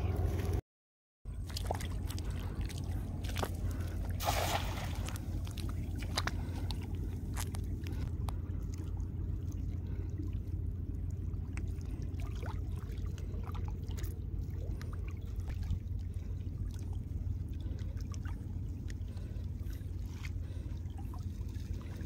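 Water sloshing and trickling as a fishing net is worked through the shallows at a muddy river edge, over a steady low rumble, with scattered small clicks and a brief splash about four seconds in.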